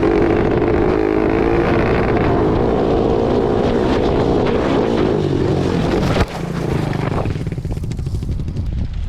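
Dirt bike engine running at a steady pace while riding. About six seconds in its sound drops off suddenly, leaving a lower rumble with wind buffeting the microphone.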